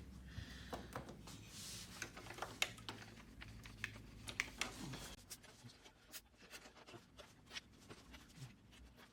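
Scattered light clicks and taps, with a faint low hum during roughly the first five seconds.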